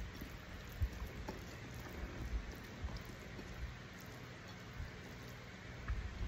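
Fingers mixing and gathering rice and saucy chicken on a ceramic plate: soft squishes and small clicks, with a few low soft knocks, over a steady background hiss.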